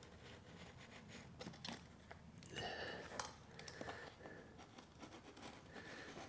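Faint rustling, crinkling and scraping of a vinyl lino sheet being handled and trimmed with a utility knife, with a few sharp clicks and a louder scrape about three seconds in.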